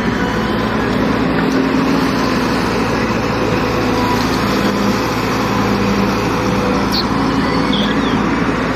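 JCB tracked excavator's diesel engine running steadily under load while its hydraulic boom and bucket move, with a few faint high squeaks near the end.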